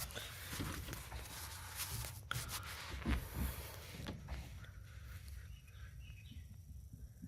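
Footsteps walking outdoors with rustling and handling noise, a few soft thuds among them. It quiets after about four and a half seconds.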